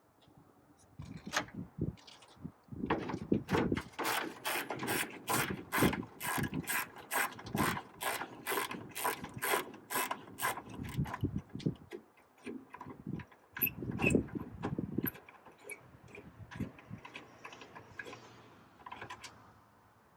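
Hand ratchet clicking as it turns out the screws holding a truck's upper grille. Several seconds of evenly paced clicks, about three a second, then scattered clicks and a few knocks from handling the tool.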